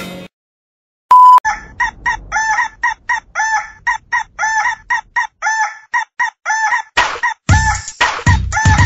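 A short loud beep about a second in, then chicken clucks repeating in a steady rhythm like an edited sound-effect track, joined near the end by a heavy electronic dance beat.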